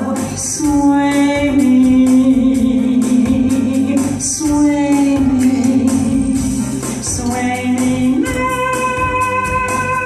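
A woman singing long, drawn-out notes into a microphone over a recorded backing track with a steady percussion beat; about eight seconds in the melody gives way to one high note held steady.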